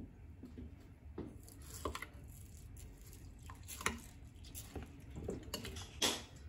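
Metal spoon stirring raw rice into wet chopped tomatoes in a glass bowl: irregular wet scrapes and light clinks of the spoon against the glass, with a louder scrape near the end.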